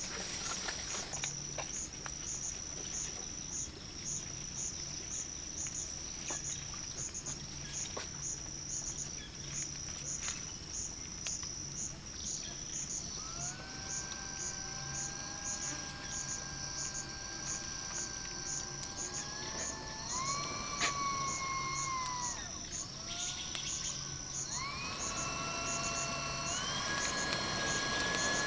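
Insects chirping in a high, even pulse about two or three times a second. From about halfway a distant engine drone comes in, its pitch rising, dipping and then climbing in steps near the end.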